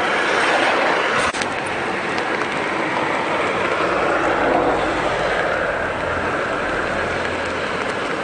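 Steady rushing noise of typhoon rain and a storm-swollen river, with a sharp click about a second in and a low rumble that swells up in the second half.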